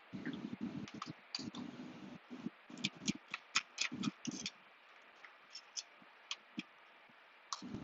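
A precision screwdriver backing a long screw out of an aluminium laptop: a run of light metallic clicks and scrapes with soft handling knocks, the clicks coming thickest in the middle and falling off near the end.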